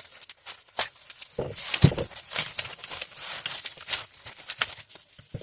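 Packaging being handled and unwrapped: paper or plastic rustling and crinkling with short clicks, and a couple of louder knocks of objects being set down or handled.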